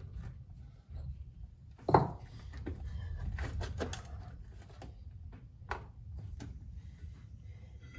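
Metal knocks and clicks from handling and fitting an excavator final drive and its bolts: one sharp knock about two seconds in, then scattered lighter clicks and taps over a low steady rumble.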